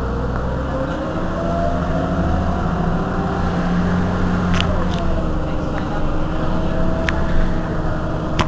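Heuliez GX 127 city bus's diesel engine idling at a standstill, its pitch wavering slightly, with a few short sharp clicks about halfway through and again later.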